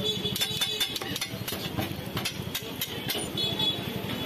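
Metal spatula clinking and scraping against a large flat griddle, a quick run of sharp knocks in the first three seconds, with oil sizzling under the onion masala and kebab skewers. A steady low hum runs underneath.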